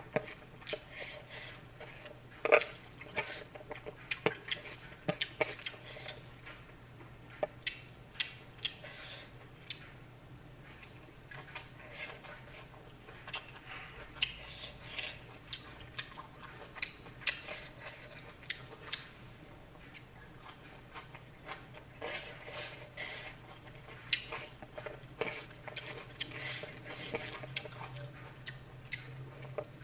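Kitchen utensils clinking and knocking against pots and dishes in short, irregular taps over a faint steady hum.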